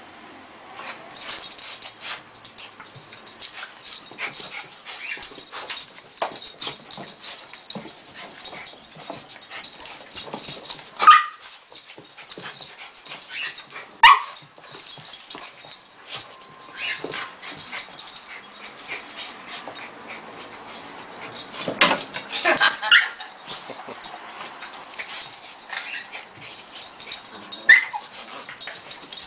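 Two small dogs play-fighting: steady scuffling and pattering on the rug, broken by a few short, high yips, loudest about eleven and fourteen seconds in, in a cluster past the middle, and once near the end.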